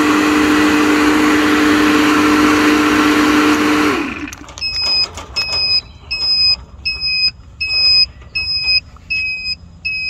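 Fieldpiece refrigerant recovery machine's compressor motor running with a steady hum, then switched off about four seconds in, its pitch sinking as it winds down. Then a steady electronic beeping, about two beeps a second, with light clicks in between.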